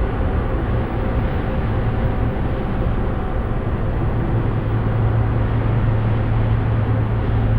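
Dark ambient drone: a steady, dense rumbling wash of noise with a strong low hum beneath and faint held tones above it.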